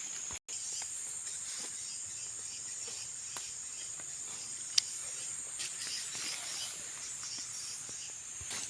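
Steady, high-pitched buzzing drone of forest insects. A single sharp click sounds about five seconds in.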